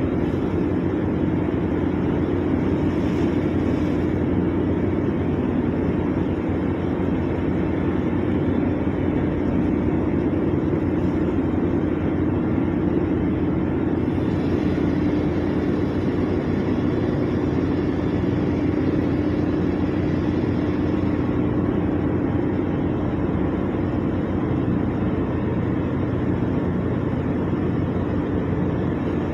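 Steady drone of a ship's engines and machinery heard on deck, with one constant low hum over an even rumble.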